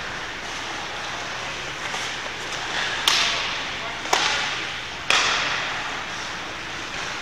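Three sharp cracks about a second apart, each followed by a short echo, over steady background noise.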